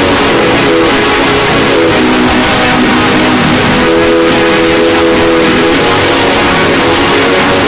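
Very loud, heavily distorted electronic 'earrape' sound effect: a harsh wall of noise with a cluster of buzzing tones that shift in pitch every second or so.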